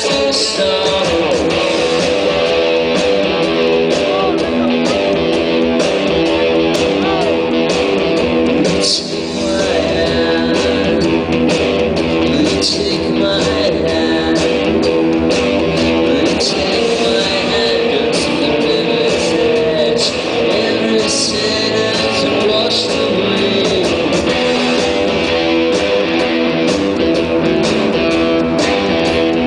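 Rock band playing live: loud electric guitar with a singing voice at times, and a brief dip in the sound about nine seconds in.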